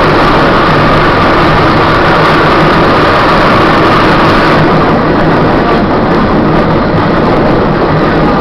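Electric trolley car running through a tunnel, heard from inside the car: a loud, steady running noise of wheels on rails and motors. The hiss in the upper range eases a little about halfway through.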